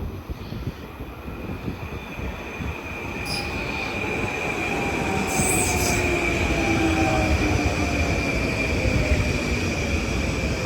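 Long Island Rail Road train coming in, growing louder, with a steady high wheel squeal and a whine that slowly falls in pitch.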